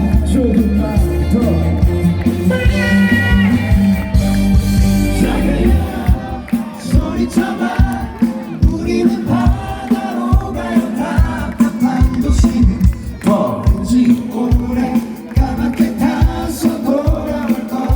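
Live band music with a male lead singer and crowd voices joining in. A held bass note under the vocal for the first few seconds, then a steady kick-drum beat.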